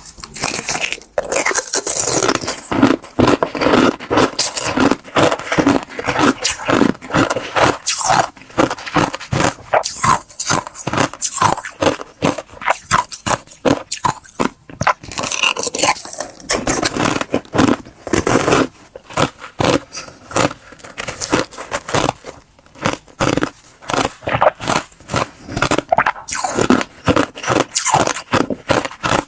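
Close-miked crunching and chewing of clear 'crystal' ice, a rapid run of crackling bites and crunches.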